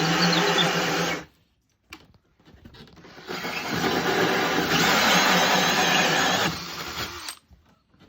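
Power tool cutting a hole, running in two spells with a steady motor hum. It stops about a second in, starts again about three seconds in, and runs for about four seconds before cutting off.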